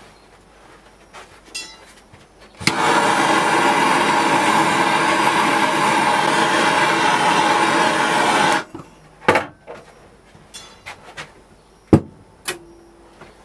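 Handheld gas blowtorch lit with a sharp click, then burning with a loud, steady hiss for about six seconds before it is shut off abruptly. A few light knocks and clicks follow, the sharpest about a second before the end.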